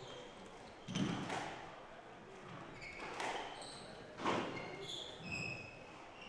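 Squash rally: the ball cracking off rackets and court walls, three hard hits a second or so apart, with brief high squeaks of court shoes on the wooden floor in between.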